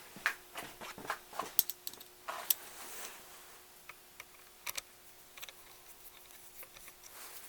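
Light clicks and clinks of small metal parts being handled while the choke housing's outer ring is fitted onto its standoffs. The clicks are quick and irregular, mostly in the first few seconds, with a couple more near the middle, then it goes quiet apart from a faint steady hum.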